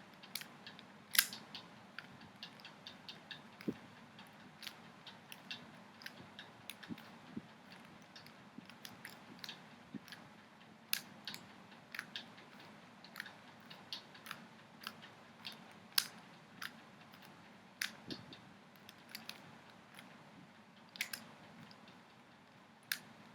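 A plastic Rubik's cube being turned face after face, each twist giving a short clicking snap, at uneven intervals.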